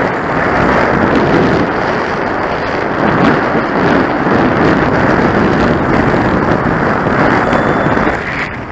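Wind buffeting the microphone of a camera mounted on a moving bicycle: a loud, steady rushing with a fluctuating low rumble, easing briefly near the end.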